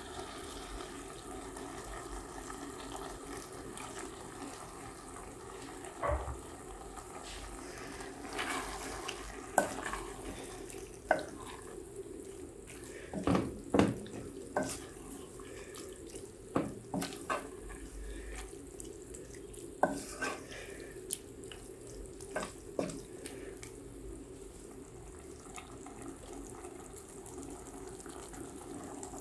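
Steady watery rushing, with scattered sharp knocks and clinks of pots and utensils, the loudest a cluster about two-thirds of the way through.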